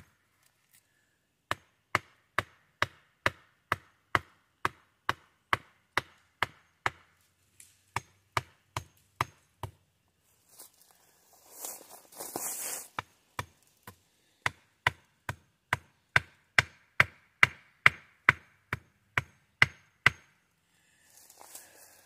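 Wood being chopped with a small axe: rapid, evenly spaced sharp chops at about two a second. Midway they stop for about four seconds, during which there is a rustling scrape, then they resume.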